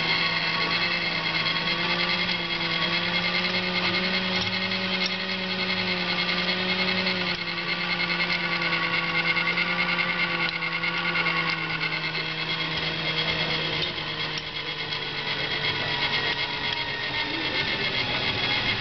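Jaquet Droz 'Machine à Écrire le Temps', a purely mechanical spring-driven automaton, running with a steady whir of its gears and cams while its pen writes the time on a card. The pitch of the whir drops slightly about seven seconds in.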